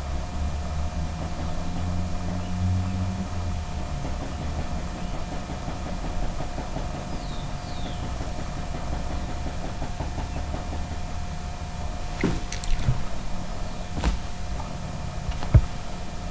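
Steady low background rumble and hum with a faint constant whine. A few sharp clicks or knocks come in the last few seconds.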